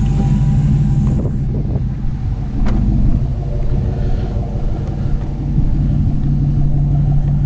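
Vehicle engine idling with a steady low hum, and a single sharp click about three seconds in.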